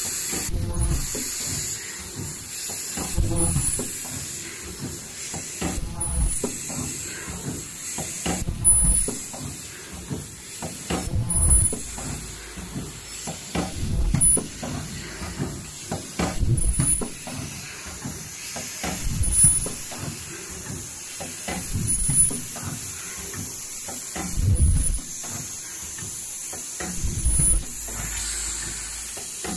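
Automatic KN95 mask production line running: a steady hiss of compressed air with irregular knocks and clatter from its stations. A short high-pitched squeal repeats every two to three seconds as the line cycles.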